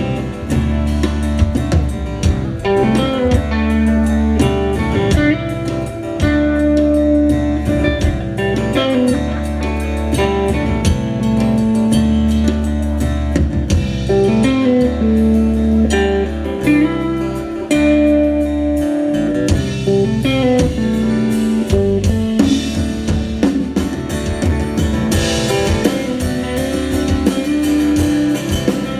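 Live band playing: electric guitars and an acoustic guitar over a drum kit.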